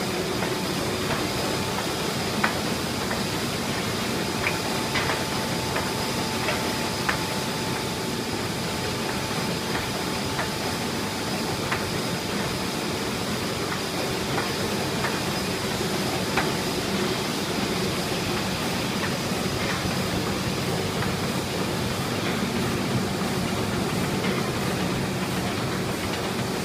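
1986 Miller TP 104-4C four-colour sheetfed offset printing press running: a steady mechanical hum and hiss with scattered light clicks. A faint steady whine stops about two-thirds of the way through.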